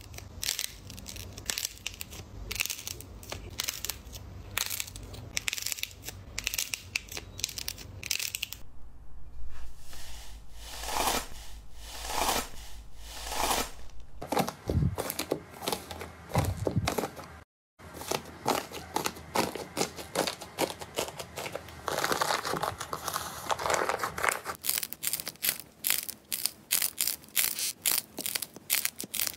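Slime being handled close to the microphone, giving a dense run of sharp crackles and pops, with a break to silence about halfway through before more crackling.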